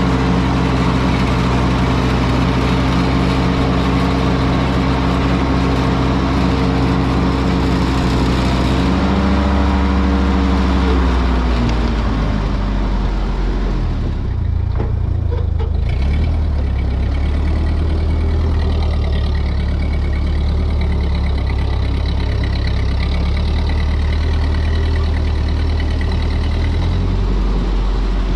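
Ford 8N tractor's four-cylinder engine running steadily. About nine seconds in it is throttled back: the pitch falls, and it settles into a lower, steady run.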